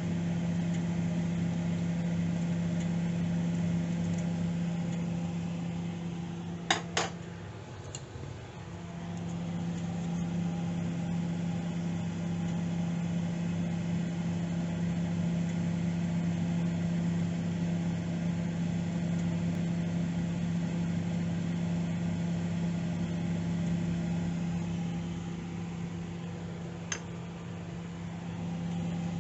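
Microwave oven running with a steady hum while it heats a bowl of water. About seven seconds in there are a couple of sharp clicks and the hum briefly drops away before coming back, and there is another click near the end.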